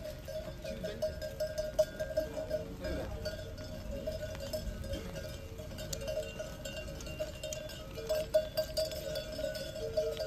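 Bells on a flock of sheep ringing and clanking on and on as the flock walks, with many small clicks of hooves on asphalt.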